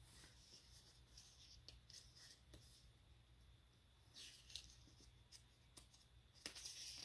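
Faint paper rustling from a picture book's pages as a hand brushes across them and begins turning a page, with a louder rustle about four seconds in and again near the end.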